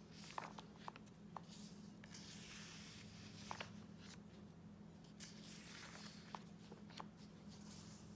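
Faint paper sounds of a journal's pages being turned by hand: a few soft swishes and light ticks.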